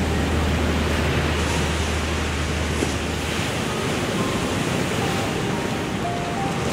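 Ocean surf breaking and washing up on a sandy beach, a steady rushing wash of waves. A low rumble runs underneath and stops about halfway through.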